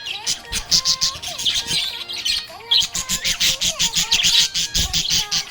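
Budgerigars chattering: a fast, unbroken stream of short, sharp chirps and squawks mixed with gliding warbled notes.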